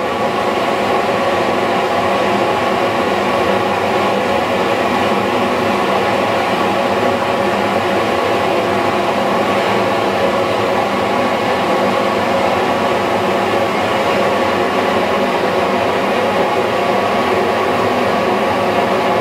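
Blowlamp burning with a loud, steady rushing noise as it heats the hot-bulb vaporiser of a Blackstone oil engine before starting; no engine firing is heard.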